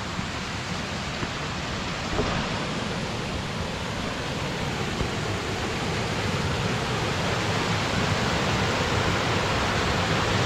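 Steady rush of a rocky creek's cascades and small waterfalls, growing slightly louder toward the end.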